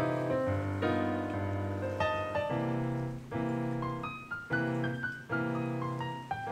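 Background piano music: held chords changing about once a second, with single melody notes above them.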